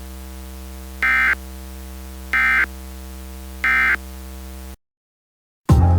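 Three short bursts of Emergency Alert System end-of-message data tones (the SAME "NNNN" code), a rapid warbling screech a little over a second apart, over a steady electrical hum. The audio then cuts to silence, and music starts at the very end.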